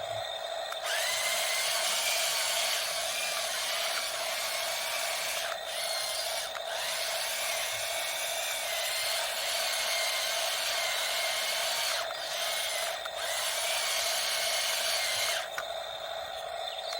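Small electric motors of a remote-control construction model running with a whirring whine, stopping briefly a few times and then cutting out near the end.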